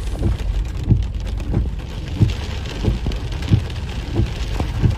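Heavy rain pelting a car, heard from inside the cabin, with the windscreen wipers thudding in a steady rhythm about every two-thirds of a second.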